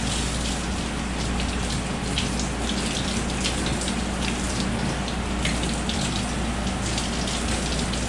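Tap water running from a faucet and splashing over a live blue crab held in metal tongs, spattering steadily into a stainless steel sink as the crab is rinsed of salt water and mud.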